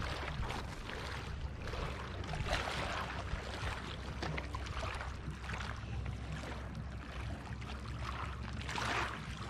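Wind rumbling over the microphone and small lake waves washing against a rocky shore, the wash swelling every few seconds.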